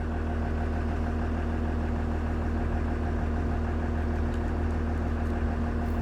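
An engine idling steadily with a constant low hum. It powers the hydraulics that open and close the rock drill clamps.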